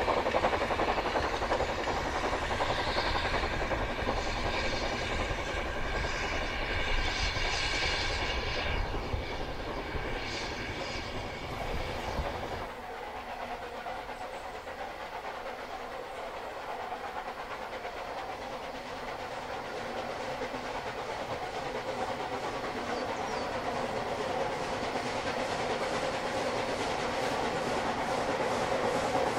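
Narrow-gauge steam train running past, with steam exhaust, hissing and the wheels clicking over the rail joints. About twelve seconds in it gives way to a quieter steam locomotive coming out of a tunnel, growing steadily louder as it approaches.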